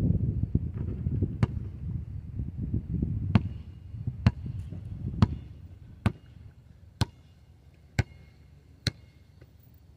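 Basketball bouncing on an asphalt court: a series of sharp bounces, the last several evenly about a second apart, the loudest near the middle. A low rumble underneath dies away about halfway through.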